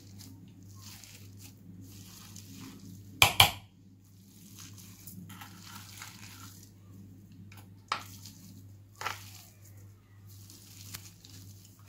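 Metal potato masher pressing boiled potatoes in a glass dish: soft, repeated squishing strokes, with two sharp clacks of metal on glass about three seconds in and a couple of lighter knocks later.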